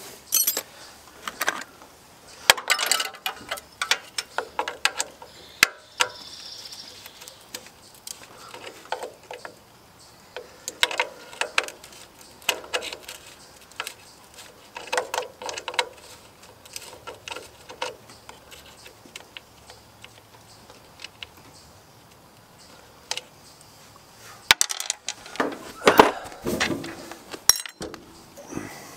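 Metal hand tools clinking and clattering in irregular clusters of short knocks, as wrenches are handled and worked on a small engine's carburetor fasteners.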